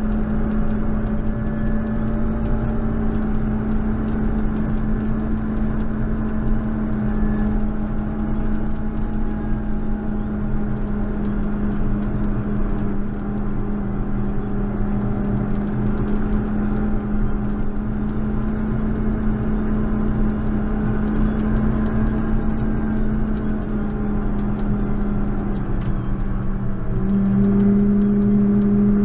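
JCB Fastrac 4220 tractor's diesel engine running steadily under load with a constant hum, growing louder near the end.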